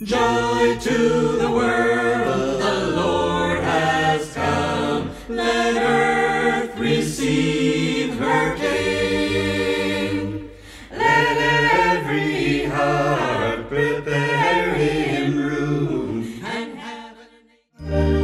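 Background music of a cappella voices singing together in harmony, with no instruments, fading out near the end.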